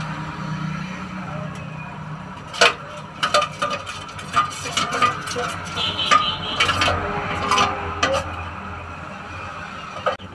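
A spoon clinking and scraping against a metal container as ground garam masala paste is mixed with water: a run of sharp clinks and knocks starting a few seconds in and ending near the end, over a steady low hum.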